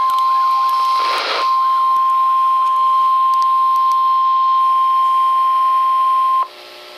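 Weather alert warning tone: one steady, loud, high beep at about 1050 Hz, held for about six seconds, that cuts off suddenly. This is the National Weather Service warning alarm tone that comes before a warning broadcast. A short burst of static comes about a second in, and a faint hiss and hum remain after the tone stops.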